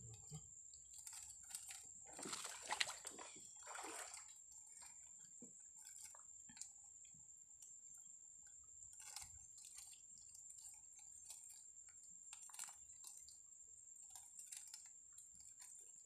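Faint rustling, clicking and dripping of a wet nylon fishing net being handled as a catch is picked out of it, with a brief louder rustle about two to four seconds in.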